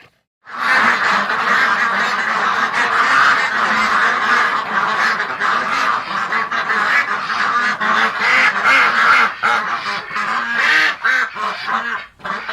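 A flock of waterfowl calling: many birds' calls overlapping densely and without pause, starting about half a second in.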